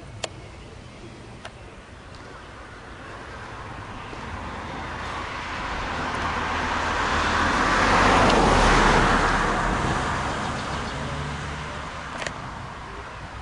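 A motor vehicle passing by on the road: its tyre and engine noise swells slowly to a peak about eight seconds in, then fades away.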